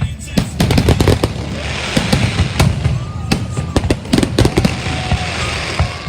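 Fireworks display: a rapid, uneven series of loud bangs and crackling bursts.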